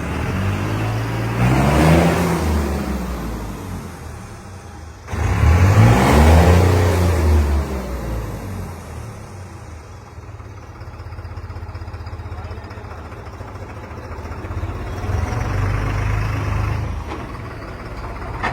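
New Holland 3630 tractor's diesel engine, fitted with a modified fuel pump, revved hard twice with the pitch rising and falling each time. It then runs steadily, swelling up once more near the end.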